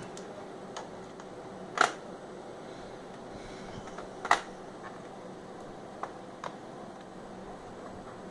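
Laptop being worked on by hand: a few sharp clicks and taps from its plastic and metal parts, two louder ones about two and four seconds in, over a steady faint hiss.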